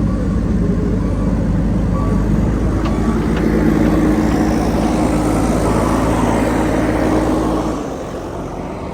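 Diesel engine of a JCB backhoe loader running under load. It builds to its loudest in the middle, then eases back about a second before the end.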